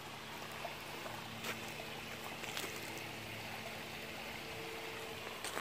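Quiet ambience of a shallow woodland creek: a steady faint wash of trickling water, with a faint low hum underneath and a couple of small clicks.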